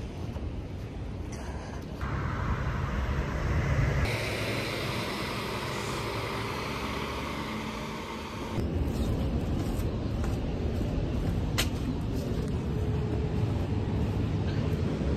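Outdoor road-traffic ambience: a steady rumble and hiss of passing cars, which changes abruptly about 2, 4 and 8.5 seconds in where the clips are cut. There is a single sharp click about three-quarters of the way through.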